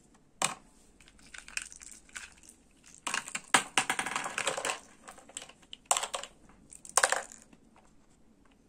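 Small hard plastic balls clicking and knocking against each other and the clear plastic chamber of a toy lantern as they are put back in by hand: scattered sharp knocks, with a dense rattle of clicks a few seconds in.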